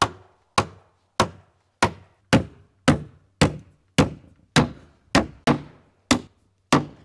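Hammer driving ring shank nails into wooden siding boards: about thirteen sharp, even blows, roughly two a second.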